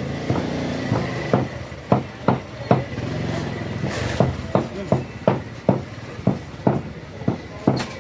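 Butcher's cleaver chopping meat on a wooden chopping block, steady strikes about two or three a second, over the steady hum of an engine.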